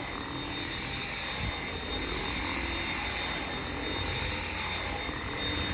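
Dyson V7 cordless stick vacuum with its motorhead running steadily while vacuuming, a constant high whine over the rush of airflow. The motor pitch holds steady, with no sign yet of the battery fading.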